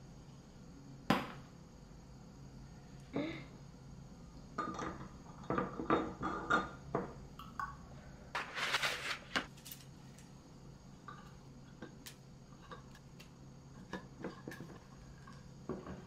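Scattered light knocks and clinks of household objects being handled and set down, with a short rustling scrape about nine seconds in, over a low steady hum.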